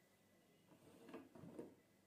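Near silence, with a few faint, soft knocks a little after halfway.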